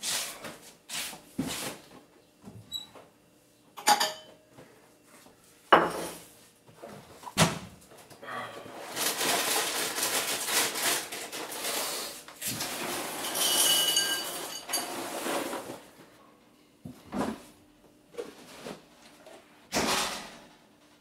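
Kitchen handling sounds: cupboard doors and drawers opening and shutting and dishes being set down, as a string of separate knocks and clicks. In the middle comes several seconds of steady rustling and rattling.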